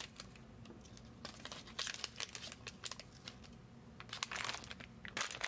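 Crinkling of LEGO Minifigures plastic blind-bag packets as a hand picks through them: scattered short rustles that get louder about four seconds in.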